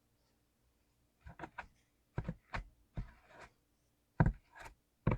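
Mechanical keyboard with lubed clicky blue switches: keys pressed one at a time at an uneven, unhurried pace, each press a sharp click, starting about a second in.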